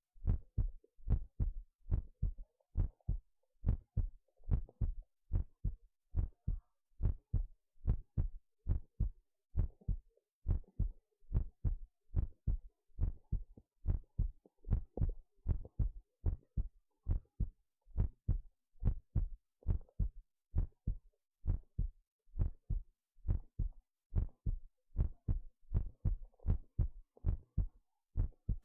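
Recorded human heart sounds played back: a steady run of dull low lub-dub thumps, about two thumps a second.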